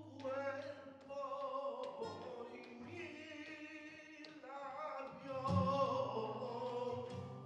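Background music with a voice singing a wavering melody over a held low note.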